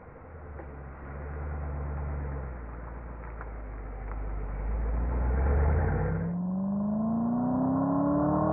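2007 Shelby GT's 4.6-litre V8 running through its Shelby-revised exhaust, first with a low, steady note; then, after a cut about six seconds in, the engine note rises steadily as the car accelerates.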